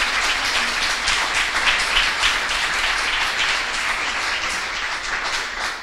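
Audience applauding, starting to die down near the end.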